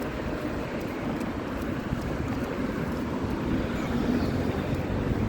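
Wind blowing across the microphone: a steady rushing noise, heaviest in the low end and buffeting unevenly.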